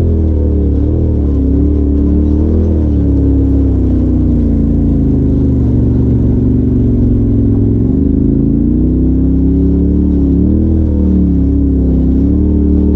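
Polaris RZR Turbo side-by-side's turbocharged twin-cylinder engine running under way, heard from the cockpit. Its pitch rises and falls several times as the throttle is worked, with a dip about eight seconds in.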